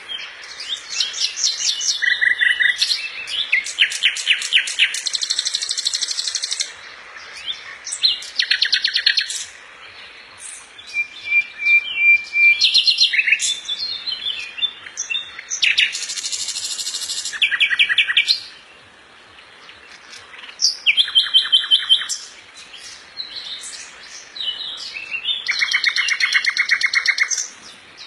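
Songbirds singing: repeated bouts of fast, high trills and chirps, each lasting a second or two, with short pauses between them.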